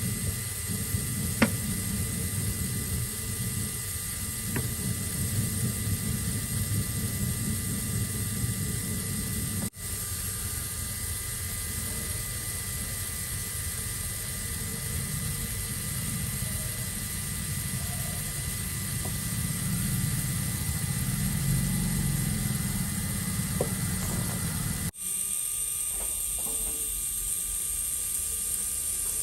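A small motor running steadily with a faint whine. The sound changes abruptly twice, about ten seconds in and near the end.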